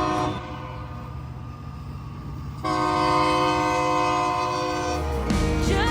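Train air horn sounding two long steady blasts: a chord of several tones, the first blast ending just after the start and a louder second one running for about two seconds.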